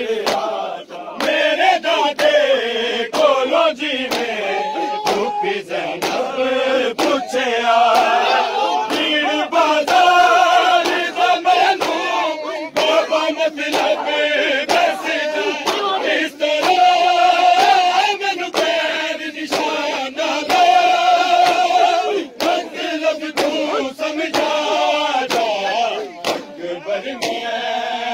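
Crowd of men chanting a Shia mourning lament (noha) together in long held phrases, over a steady beat of sharp hand slaps on their chests (matam).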